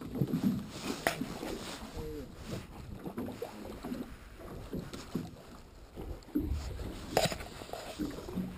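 Water splashing and slapping at the side of an aluminium fishing boat as a hooked pike thrashes at the surface. Scattered knocks come with it; the sharpest is near the end.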